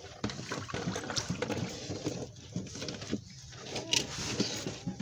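Handling noise: irregular rustling, clicks and knocks from a plastic tub and mesh net being handled close to the microphone.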